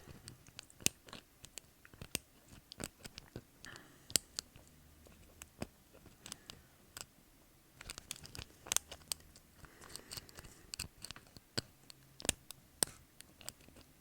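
Lock pick and tension wrench working inside a doorknob's pin-tumbler lock: irregular small metallic clicks and scrapes, a few every second, as the hook probes and lifts the pins.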